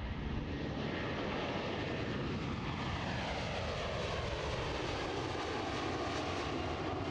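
Airbus A330 jet airliner flying past low overhead, its Rolls-Royce Trent 700 turbofans giving a steady, loud jet noise whose pitch falls over several seconds as it passes.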